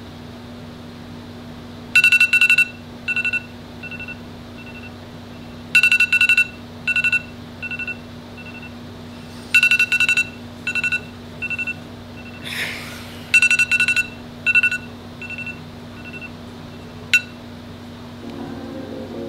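Smartphone alarm going off: four repeating phrases of electronic beeps about four seconds apart, each a quick loud double beep followed by fainter, fading beeps, then it stops. A brief rustle comes between the last two phrases, and a single click near the end, over a steady low hum.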